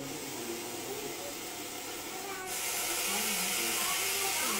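Russell's viper hissing: a softer hiss, then a louder, steady hiss from about halfway through.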